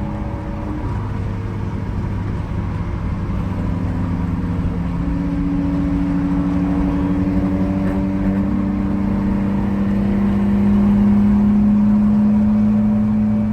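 Car engine running steadily, a continuous drone whose pitch steps up and down slightly a few times, growing a little louder about three-quarters of the way through.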